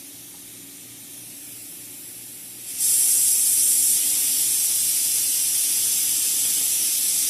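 Compressed air hissing out of an Uragun PCP air rifle's air system. It starts as a faint hiss, then about three seconds in becomes a much louder, steady high hiss as the valve is opened further.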